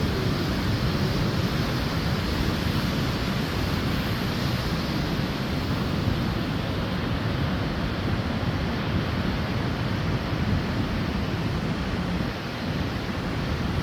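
Steady rush of wind and surf on the shore, with wind buffeting the microphone.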